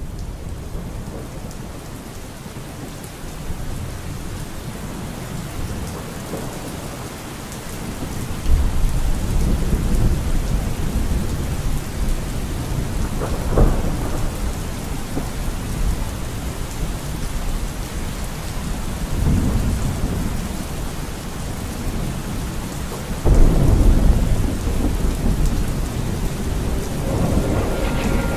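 Steady rain with deep rolls of thunder, one swelling about eight seconds in and a louder one later, and a sharp crack in between.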